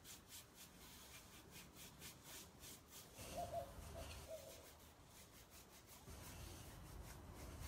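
Faint rhythmic rubbing of a paintbrush scrubbing back and forth over a painted wooden dresser while wet-blending clay paint, about four strokes a second.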